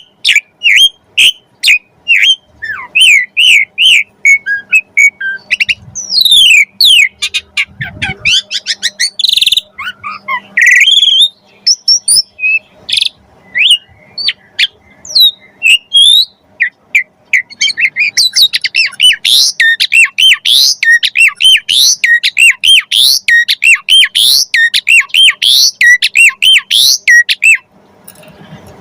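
Asian pied starling (jalak suren) singing persistently in a long, fast run of chirps, whistles and harsh squawky notes, with mimicked calls of other birds worked in; the song breaks off briefly near the end.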